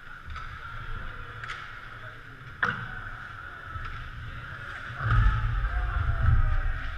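Ice hockey play in a large arena: skates scraping steadily on the ice, a single sharp knock about two and a half seconds in, and a loud low rumble near the end.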